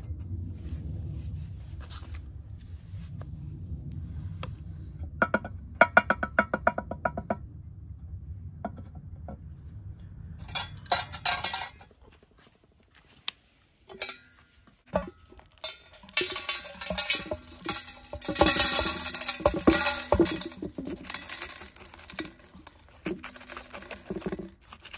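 Small pumice stones and gritty potting soil clinking and rattling against a small ceramic pot as they are poured and pressed in, in quick runs of clicks. After a short pause, soil grains scrape and rustle as metal tweezers work them around a potted succulent.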